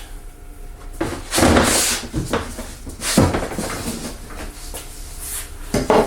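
A wooden board being pulled out and handled: a rough sliding scrape about a second in, then a knock about three seconds in and another near the end.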